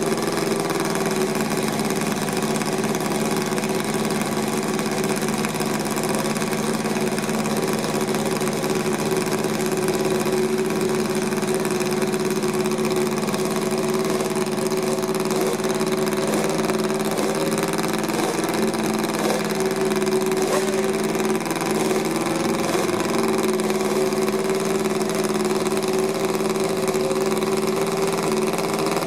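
Honda racing motorcycle engine idling steadily during warm-up, its pitch and level holding even throughout.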